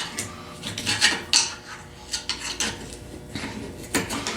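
Irregular metal clicks and scrapes as a rusted vise grips locking pliers is handled and worked, its seized joint still stiff but freeing up.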